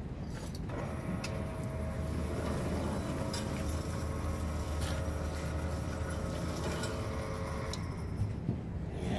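Motor of a portable rail-cutting carriage running steadily. Its whine of several steady tones starts just under a second in and stops about a second before the end, over a low hum.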